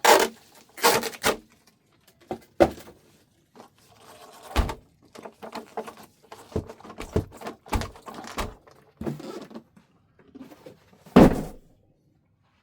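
Unboxing handling noises: an RC monster truck and its packaging being moved and lifted out, with scattered knocks, rustles and thuds, the loudest a single thump about eleven seconds in.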